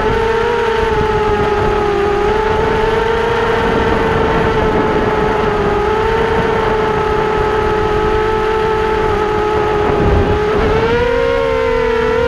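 Motor and propeller of a model aircraft whining at a steady pitch in flight over a rush of air, the pitch stepping up near the end as the throttle changes.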